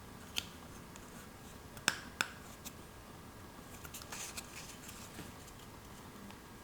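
Small plastic toy pieces being handled: a few sharp clicks and taps, the loudest two in quick succession about two seconds in, then a light scratchy rustle around four seconds in.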